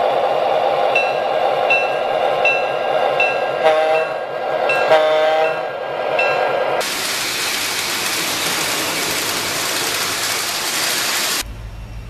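O scale model diesel locomotive running, its sound system ringing the bell with a short ding about every three-quarters of a second and giving two short horn blasts about four and five seconds in. About seven seconds in the sound switches abruptly to a loud, even rushing noise that stops short near the end.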